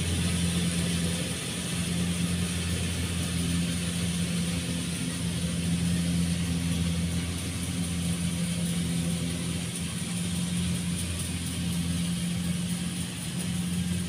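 Rice combine harvester's engine running steadily while it works the field, a constant low hum that holds an even pitch.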